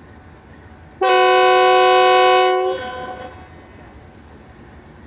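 Diesel locomotive's air horn sounding one loud blast of about a second and a half, several notes at once, starting about a second in and dying away with a short echo.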